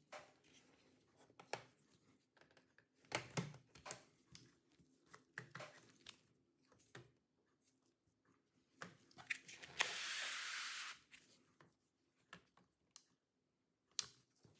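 Plastic clips of a laptop's bottom panel snapping loose one after another as a thin plastic pry tool is worked around the seam: a series of sharp clicks and snaps. About ten seconds in there is a scraping rub lasting about a second, as the tool slides along the edge.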